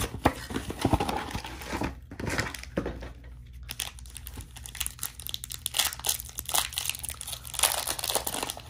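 Foil trading-card packs from a Panini Prizm mega box being torn open and crinkled by hand: irregular crinkling and tearing with sharp crackles, loudest near the start and again near the end.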